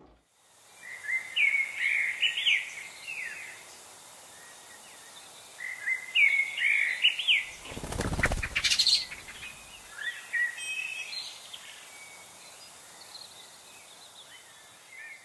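Bird song in short phrases of quick rising and falling whistled notes, repeated several times over a steady background hiss. A whooshing sound effect sweeps through about eight seconds in.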